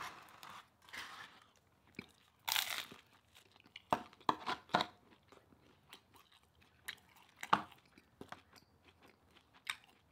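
A person chewing food during a mukbang, with a few soft noisy swishes early on and scattered sharp crunches every second or few.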